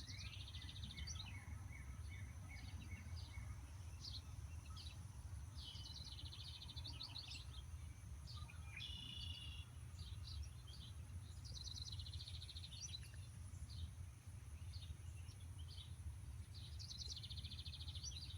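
Small songbirds chirping and twittering in short trilled phrases every few seconds, over a low steady background rumble.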